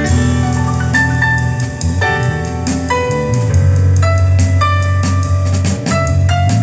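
Music with piano and drum kit playing through a pair of Sony SS-CM3 bookshelf speakers, each a 4.5-inch paper-cone woofer with a 1.5-inch tweeter, heard in the room during a listening test; a strong bass line under held piano notes and steady drum strikes.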